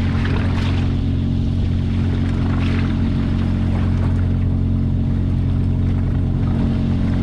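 Small fishing boat's engine running with a steady, unchanging drone.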